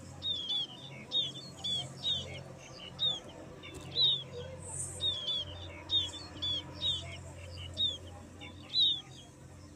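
A bird chirping over and over, with short high chirps about two a second over a steady low hum.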